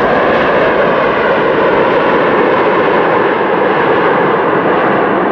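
Boeing 747-400 jet airliner on its landing roll just after touchdown: loud, steady jet engine noise, its hiss thinning slightly near the end as the aircraft moves away.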